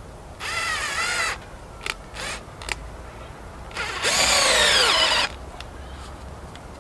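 Power drill-driver driving screws into pallet wood to fix a bench backrest: two runs of the motor, the second longer and louder, with a few short knocks in between.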